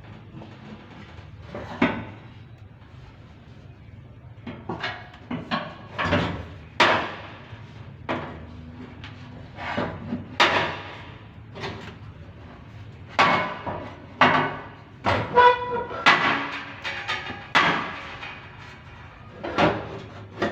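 Irregular clanks and knocks of metal tools and parts being handled, about fifteen in all, several with a brief metallic ring.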